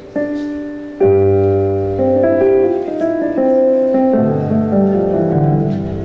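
A keyboard plays held chords as an instrumental introduction. A fuller chord with deep bass comes in about a second in, and the bass steps downward over the last couple of seconds.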